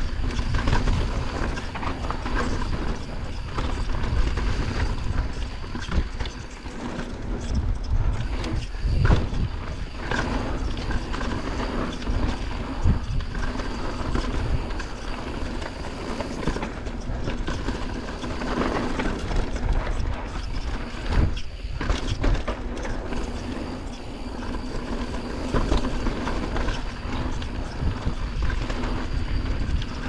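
Mountain bike ridden fast down a dirt trail: tyres running over dirt, the bike clattering and knocking over bumps, and wind rumbling on the microphone.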